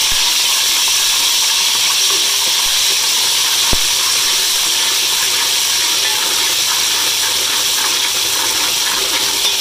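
Sliced onions sizzling steadily in hot oil as they brown in a metal pot, stirred with a steel ladle; one sharp click about four seconds in.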